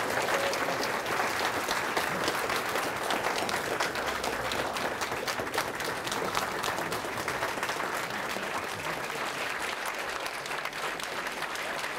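Audience applauding: a roomful of people clapping steadily, easing off slightly toward the end.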